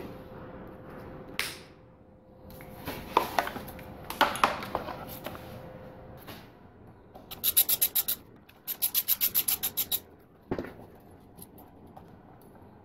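Hand work on a motorcycle being stripped down: scattered knocks and scrapes, then two short runs of rapid, even clicking about halfway through, and a final knock.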